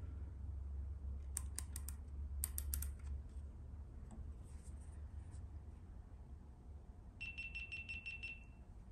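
Outside micrometer's ratchet thimble clicking in two quick runs of about four clicks as it is closed on a turned steel bearing journal, the final measurement against the size target. A steady low hum runs underneath, and near the end a high pulsing beep sounds for about a second and a half.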